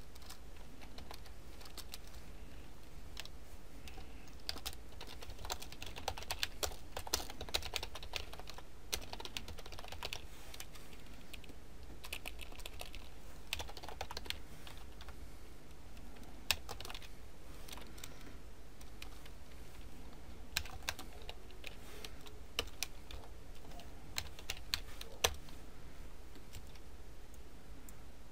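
Typing on a computer keyboard: irregular key clicks in quick runs, busiest in the first half and thinning out later, over a faint steady low hum.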